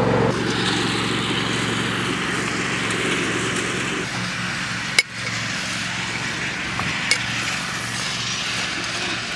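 Riding lawn mower engine running steadily, with a sharp click about five seconds in.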